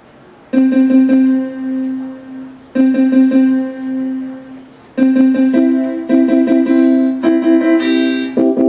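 Casio LK-300 electronic keyboard playing its piano voice: a short phrase of repeated notes that starts about half a second in and is played again, then a third time with more notes added as fuller chords.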